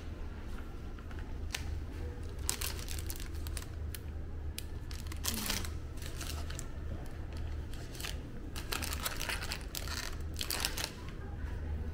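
Thin plastic wrapping on packaged hotel amenities crinkling as a hand handles the packets, in irregular bursts that are busiest in the last few seconds. A steady low hum runs underneath.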